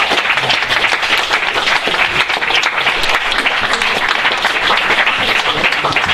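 Audience applauding steadily, a dense roomful of clapping that marks the end of a talk.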